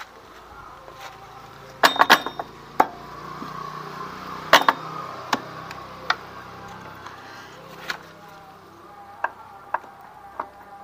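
Hand tools clinking and knocking on the metal parts of a scooter's CVT: a cluster of sharp strikes about two seconds in, another near the middle, then scattered lighter clicks. A call to prayer sings faintly in the background, clearer near the end.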